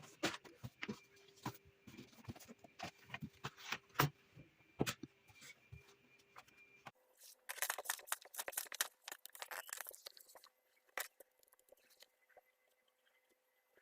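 Small objects handled on a desk: a run of sharp taps and clicks over a faint steady hum. The background changes about seven seconds in, followed by three or four seconds of dense rustling and crackling, then a few scattered clicks.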